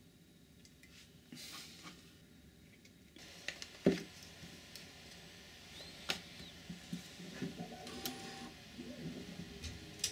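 Handling noise as a plastic light housing is fitted together and onto a power tool battery: scattered clicks and knocks of plastic parts, the loudest about four seconds in.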